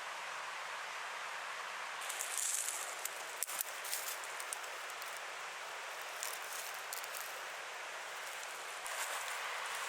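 Steady outdoor hiss with bouts of rustling and small clicks, starting about two seconds in and picking up again near the end.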